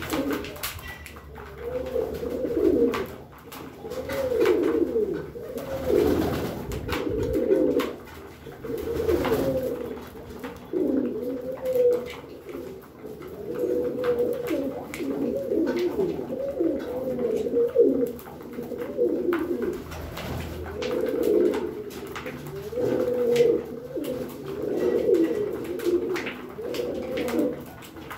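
Several domestic pigeons cooing, one low phrase of about a second after another with hardly a break, with scattered light clicks among them.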